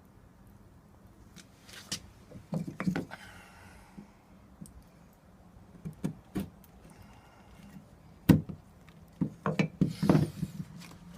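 Irregular hard knocks and clatter of wood being handled, in small clusters, with one loud knock past the middle and a quick run of knocks near the end.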